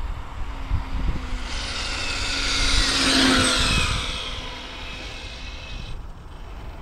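Hobao VTE2 RC car's electric motor whining as it drives past, swelling and then fading with the pitch dropping as it goes by, over wind on the microphone.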